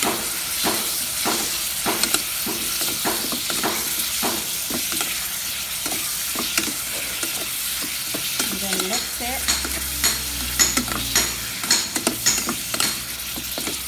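Whole shrimp frying in hot oil, sizzling steadily, while a metal slotted spatula stirs them, scraping and clicking against the metal pot. The clicks come sharper and more often in the last few seconds.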